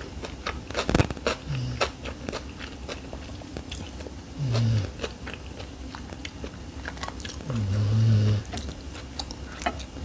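Close-miked chewing of a soft rice-paper shrimp summer roll with lettuce and cucumber: wet mouth clicks and smacks with a light crunch. A few short, low closed-mouth hums come in between.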